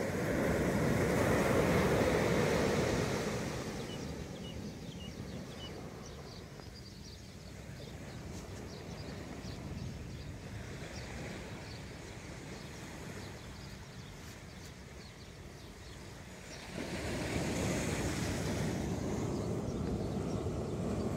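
Small waves breaking and washing up a sandy shore, the surf swelling at the start and fading over the first few seconds, then rising again about 17 seconds in.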